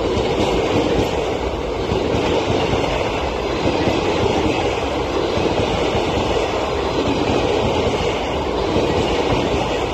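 Passenger coaches of an Indian Railways express train passing close by at speed: a steady noise of wheels running on the rails and coaches going by.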